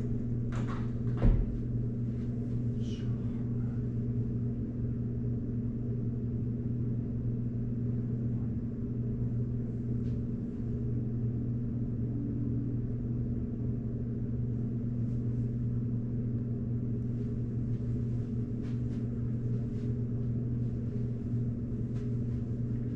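Steady low machine hum, even and unchanging, with a sharp knock about a second in and a few faint clicks.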